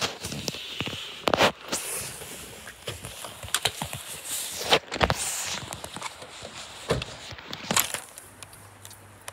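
Handling noise from a phone being moved about against a jacket: fabric brushing over the microphone, with irregular knocks and clicks from fingers and bumps.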